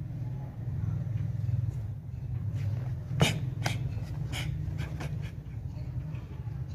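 A karate gi snapping on quick blocks and strikes: about five sharp snaps in two seconds, the first the loudest, over a steady low rumble.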